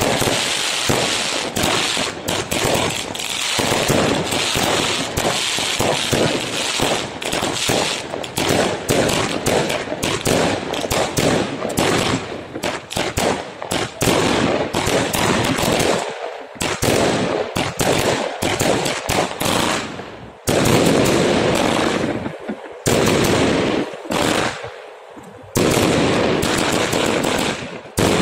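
Fireworks bursting in a fast, nearly continuous run of bangs, broken by a few short lulls in the second half.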